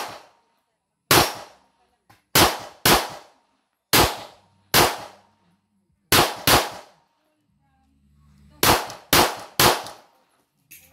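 Pistol fired about eleven times at competition pace: some shots in quick pairs about half a second apart and one run of three, with pauses of one to two seconds between groups. Each shot is sharp and rings out briefly.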